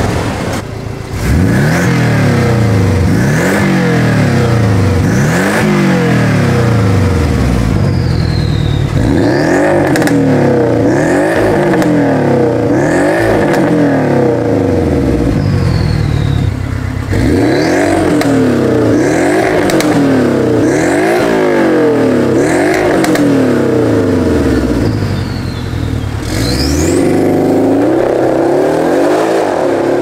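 Porsche 718 Cayman GTS engine blipped repeatedly while parked, about one rev a second, its note rising and falling with each blip; partway through it is heard through an Fi Exhaust valvetronic system with catless downpipes and the valves open, after the stock exhaust. Near the end the revs climb in one long pull.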